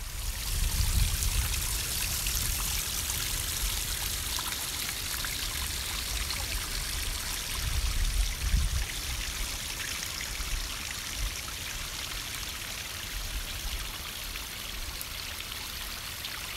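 Small woodland creek trickling and splashing over rock ledges in little cascades, a steady hiss of running water. A low rumble on the microphone comes twice, about a second in and again around eight seconds.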